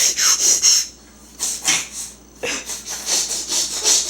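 A small child making funny hissy, spluttering noises with his mouth, in about four breathy bursts.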